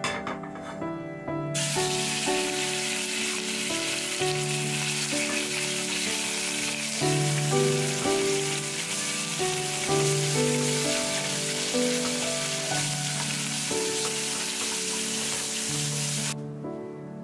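Sliced pork belly sizzling in hot vegetable oil in a hammered aluminium pan, a dense steady hiss that starts abruptly about a second and a half in and cuts off abruptly near the end. Background piano music plays underneath.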